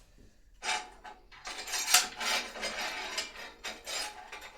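Metal clinking and scraping as a metal rod is worked through its place on the engine, starting with a short clatter about half a second in and then running almost without a break, with a sharp clank about two seconds in.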